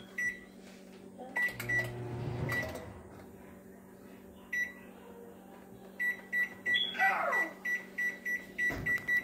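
Microwave oven keypad beeping as its buttons are pressed: short single-pitch beeps, a few scattered at first, then a quick run of them in the last few seconds.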